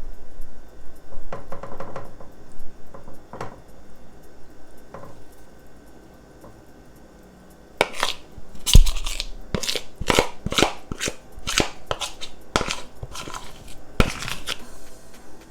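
A metal spoon knocking and scraping against the batter bowl and skillet while pancake batter is spooned out. There are a few scattered scrapes, a short lull, then a quick run of about a dozen sharp knocks in the second half.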